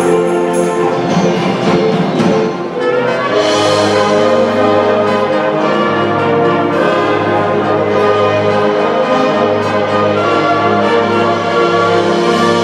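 Live orchestra with brass and keyboards playing a Christmas processional in sustained chords; about three seconds in it briefly dips, then comes back fuller with a low bass line.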